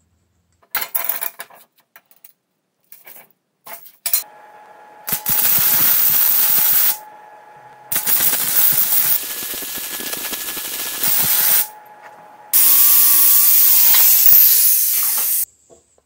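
Wire-feed (MIG) welder welding steel plate and tube: several bursts of steady arc hiss and crackle, each one to three seconds long, with a faint machine hum between them. A few clicks of metal parts being handled come in the first few seconds.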